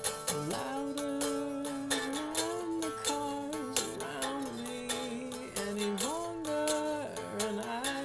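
A man singing a slow melody with long held notes that slide between pitches, over a few plucked strums on a string instrument.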